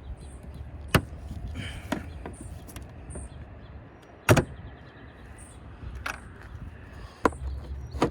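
Sharp plastic clicks and knocks, six spread across a steady low background hum, the loudest about four seconds in: plastic push clips on a panel being squeezed and pulled loose by hand.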